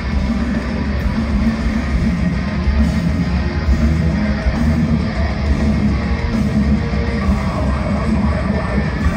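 Deathcore band playing live: heavily distorted electric guitars, bass and drums, loud and unbroken, heard from within the crowd.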